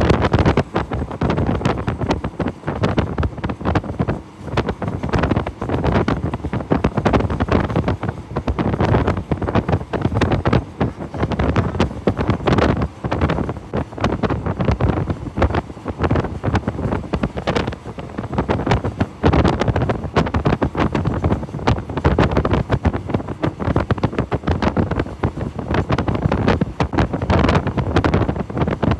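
Wind buffeting the microphone on a moving train, with the train's steady running rumble underneath.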